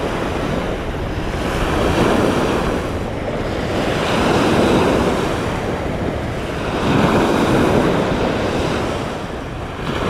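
Strong wind buffeting the microphone, mixed with surf washing onto a beach. The noise swells and eases every two or three seconds.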